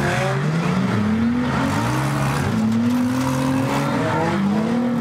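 Several demolition derby cars' engines revving hard at once, their pitch repeatedly rising and falling as they rev up and back off.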